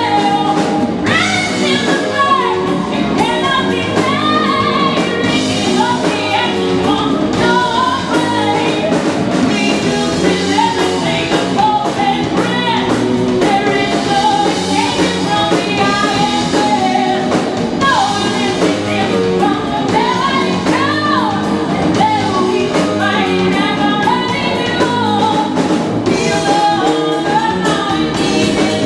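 Live rock band playing: a woman sings into a microphone over distorted electric guitar, bass guitar and a drum kit with cymbals.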